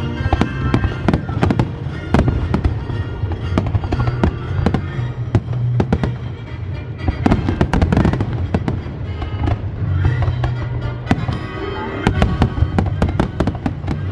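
Fireworks going off in rapid succession, many sharp bangs and crackles with denser volleys a couple of times, over music with sustained low notes.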